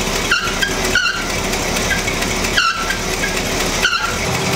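1984 Chevrolet C30 dually's 454 big-block V8 running steadily just after start-up, turning the A/C compressor as the system is charged with R134a. A few short high chirps sound over the engine.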